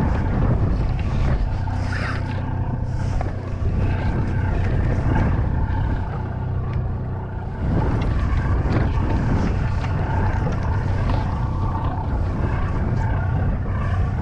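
Boat engine running steadily, a low even drone that gets a little louder about halfway through.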